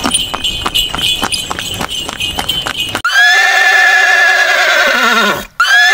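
Horse sound effect: hooves clip-clopping at a steady pace, about three to four clops a second, then a loud, wavering horse whinny that falls in pitch at its end; a second whinny starts just before the end.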